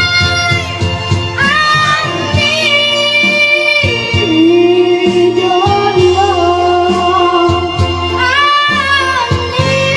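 Music: a song with a sustained, gliding sung melody over a steady beat and bass.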